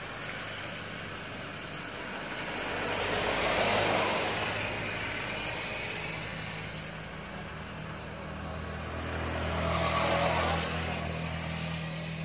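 Two road vehicles, one a white minibus, passing in turn on wet asphalt, their tyres hissing on the wet surface: the first pass swells and fades about four seconds in, the second about ten seconds in. A steady low engine drone sets in from about six seconds on.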